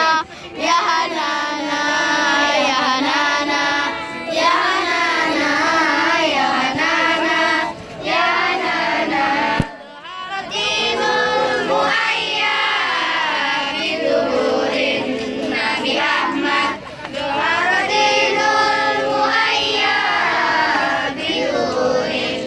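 Children's voices singing together in long melodic phrases with short breaks between them.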